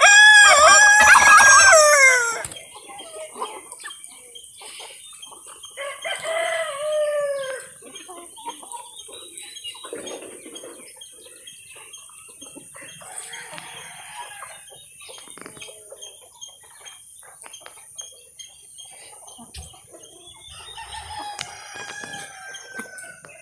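A rooster crows loudly, a long call that drops in pitch at its end, then crows again more quietly about six seconds in. Fainter calls and clucks from other poultry follow over a steady high hiss.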